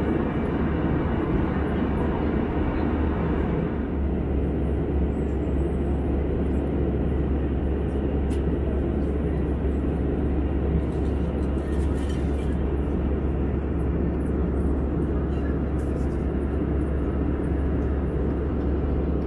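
Steady cabin noise of an Airbus A320 in cruise: a constant low rumble with airflow hiss over it. The higher hiss eases a little about four seconds in.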